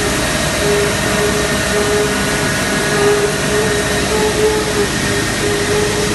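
High-speed plastic pulverizer running with a loud, steady rushing whir and a hum that keeps fading in and out.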